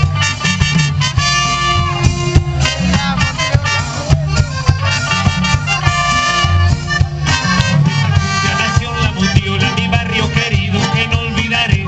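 Live Latin ska band with a horn section: trumpet and trombone play held notes over congas, drums and a heavy bass, and voices join near the end.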